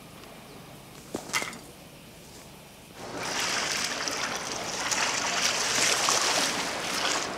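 Water splashing and sloshing as people wade through a flooded basement. It starts suddenly about three seconds in and stays loud. Before it comes a quiet stretch with a couple of short knocks about a second in.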